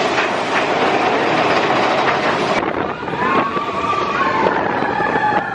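Mine-train roller coaster running on its track: a loud, steady rattling rush, joined in the second half by a long squeal that slowly falls in pitch.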